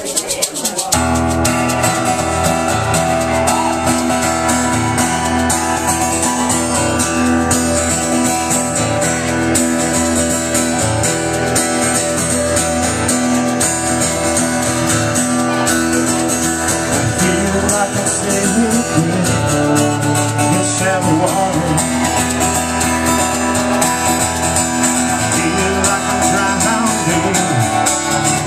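A live band playing a song on drum kit and strummed acoustic guitar, starting about a second in and carrying on steadily.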